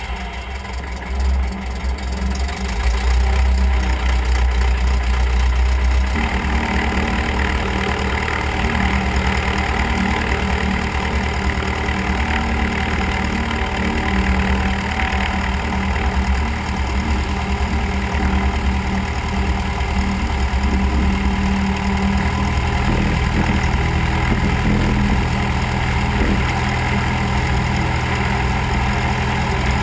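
Cessna 172's piston engine and propeller running at idle as the plane taxis, heard from outside the cabin. The sound shifts about six seconds in, then holds steady.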